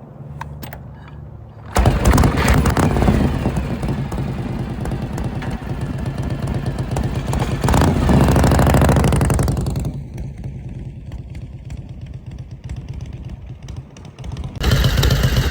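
1979 Harley-Davidson FL Shovelhead V-twin engine, its transmission freshly repaired, starting abruptly about two seconds in and running. It revs up a little past the middle, drops back, then runs loud again near the end.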